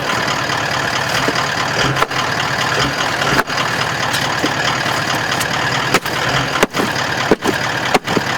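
Four-wheel-drive engine idling with a steady noisy hiss over it, broken by several brief dropouts, while the bogged vehicle is being recovered.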